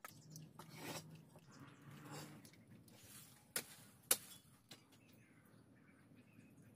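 A few soft scuffs, then two sharp clicks or knocks about half a second apart around the middle; otherwise quiet.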